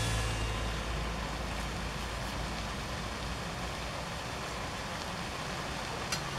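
Steady sizzling of noodles frying in a wok, with a single click near the end.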